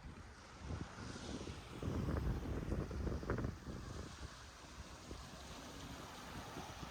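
Wind buffeting the microphone in uneven low gusts, strongest in the middle, over a steady wash of surf on the beach.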